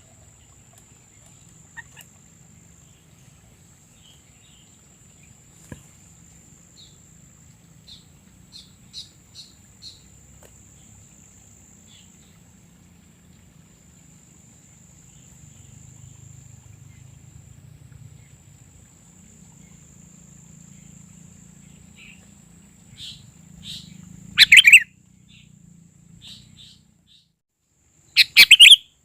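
Sooty-headed bulbul (kutilang) calling: scattered short chirps for most of the time, then two much louder bursts of calls near the end.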